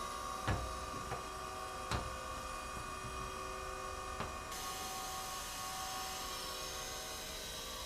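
Taft Peirce Model 200 surface grinder running with a steady hum, its spindle quiet. Four short sharp clicks come in the first half.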